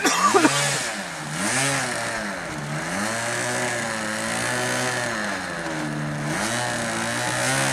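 Hangar 9 P-51 PTS radio-control model plane's engine running as it taxis on the ground. Its pitch swoops up and down over and over as the throttle is opened and closed.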